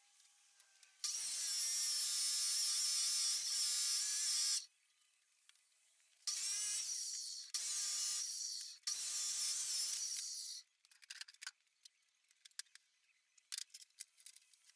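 Electric drill running in four bursts with a steady high whine: one long run of about three and a half seconds, then three shorter runs back to back about halfway through, followed by a few light ticks.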